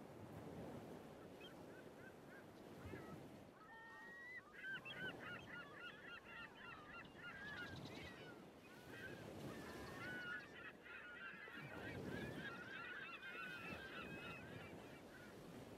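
A flock of birds calling, many short high calls overlapping, thickening about four seconds in and again in the second half, over a faint low rushing background.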